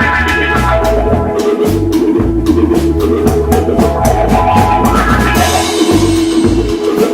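Instrumental funk-rock jam: a drum kit keeps a steady beat over a moving bass line and held chords, with a bright cymbal-like wash swelling in about five seconds in.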